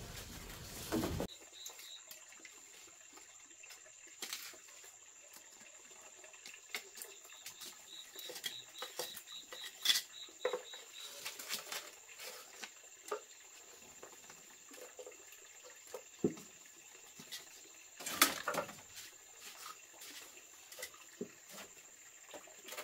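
Scattered light knocks and clicks, with a sharper knock about ten seconds in and the loudest one around eighteen seconds in, over a faint steady high-pitched tone.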